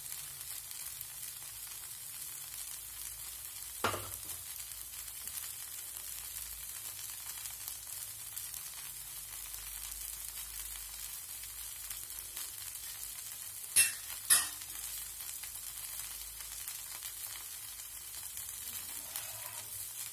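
Wheat dosa batter frying in oil on a hot griddle, a steady high sizzle. A light knock about four seconds in and two sharp clicks about half a second apart midway.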